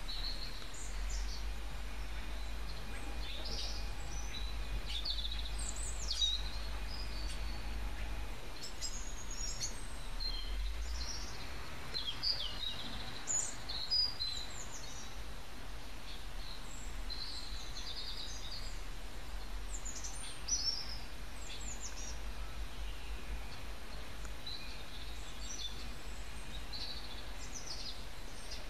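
Birds chirping: short, high calls scattered throughout, over a steady low background rumble.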